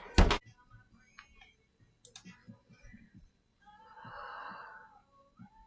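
A woman's sneeze: a short, loud, explosive burst just after the start, then quieter breathing with a softer breathy sound about four seconds in.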